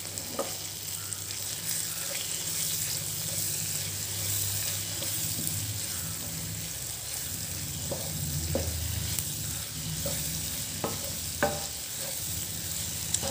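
Squid, onions and masala sizzling in a non-stick pan while a wooden spatula stirs them, with a few short scrapes of the spatula against the pan. A steady low hum runs underneath.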